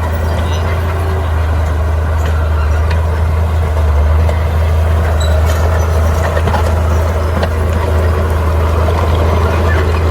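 Heavy diesel engine of earthmoving machinery running steadily with a deep, even drone, with a few faint clicks over it.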